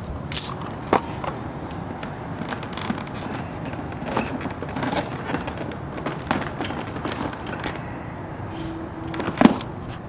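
Handling noise from a bike saddlebag being opened: scattered rustles, scrapes and light clicks, with a sharp click near the end.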